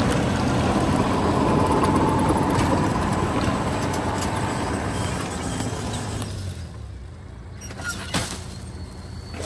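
Tractor engine running under load while it pulls a rotary tiller and seeding rig through the soil, with the tiller churning earth. The noise is loud at first and fades away about six seconds in, leaving fainter sounds with a few clicks.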